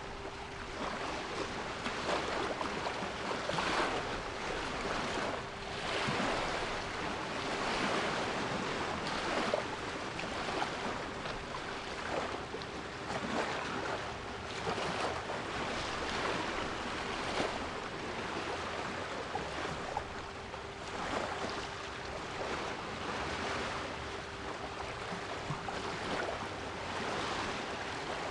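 Sea waves washing in, a rushing surf noise that swells and ebbs every few seconds, with a steady 396 Hz pure tone held underneath.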